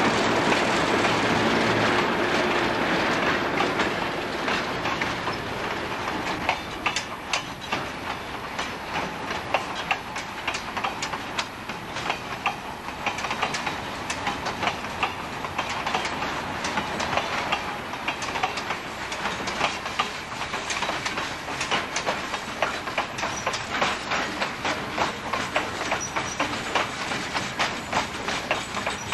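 Freight train hauled by an Alco S4 diesel switcher rolling by. It is loudest with a low rumble for the first few seconds, then goes on as a long run of wheel clicks and clacks over the rail joints.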